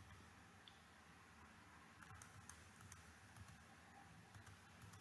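Near silence: faint room tone, with a scattering of small, light clicks from about two seconds in.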